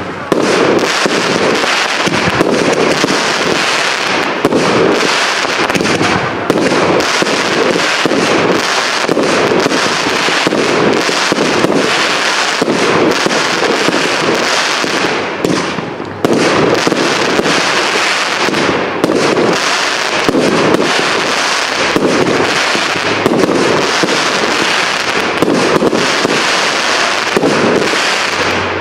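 Fireworks display: shells bursting into a dense, continuous crackle of crackling stars, over repeated dull booms. It eases briefly about halfway through, then picks up again.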